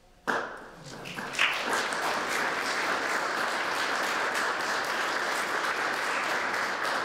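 Small audience applauding, breaking out suddenly about a third of a second in and building to steady clapping within a couple of seconds.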